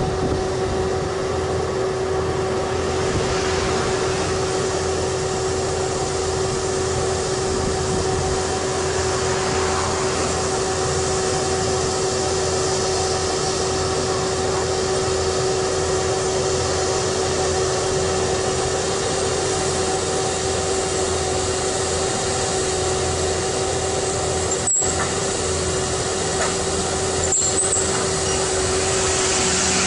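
Vermeer 16-ton horizontal directional drilling rig running steadily while drilling, its engine and hydraulics giving a constant pitched hum over a rough mechanical noise. The sound cuts out briefly twice near the end.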